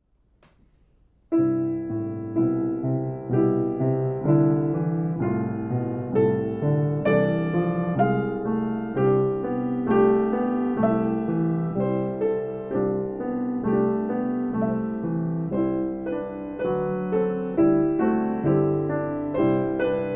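Piano music starts about a second in, after near silence, with notes struck in a steady, flowing line.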